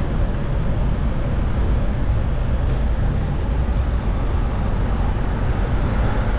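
Steady rumble of wind on the microphone mixed with road traffic, heard from a moving bicycle.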